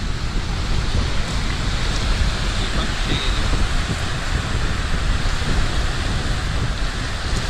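Strong wind buffeting the microphone, a steady deep rumble, over small waves breaking and washing up a pebble beach.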